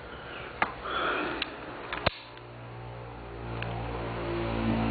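A few sharp clicks, the loudest about two seconds in, then a steady low hum with layered tones that grows louder.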